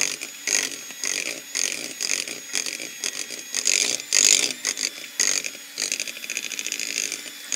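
Electric hand mixer running, its beaters churning thick creamed butter-and-sugar batter in a glass bowl as eggs are beaten in one at a time, with an irregular scraping under the steady motor whine.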